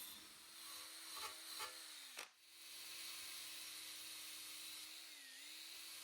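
Dremel rotary tool running with a faint steady whine as it grinds paint off the broken metal tail-light bracket to prepare it for welding. Its pitch drops sharply about two seconds in and sags again near five seconds as it bites, with light scraping early on.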